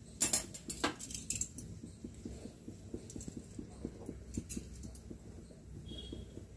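Metal kitchen tongs clinking sharply a few times in the first second and a half as a maize-flour roti is lifted from the griddle onto an open gas burner, then faint irregular ticking and crackling as the roti roasts over the flame.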